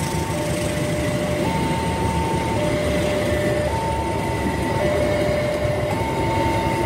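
Level-crossing warning alarm sounding a steady two-tone pattern, a higher and a lower tone taking turns about every second, over the low rumble of a passenger train's coaches rolling past.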